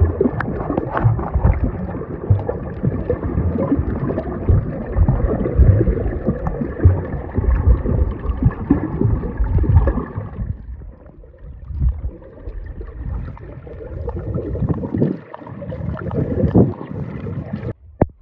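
Water sloshing and gurgling around the microphone with frequent knocks and splashes, stopping abruptly near the end.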